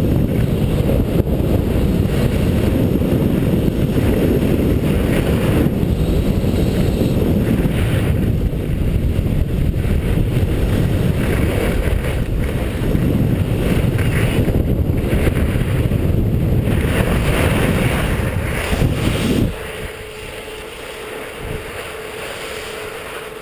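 Wind buffeting a helmet-mounted GoPro's microphone as the skier races down the slope, mixed with the hiss and scrape of skis over the snow. About twenty seconds in the rushing cuts off sharply as the skier comes to a stop, leaving a much quieter background with a faint steady hum.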